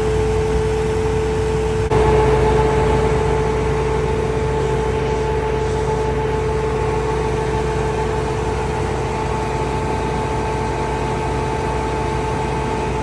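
An engine idles steadily with a steady whine over it, getting slightly louder about two seconds in.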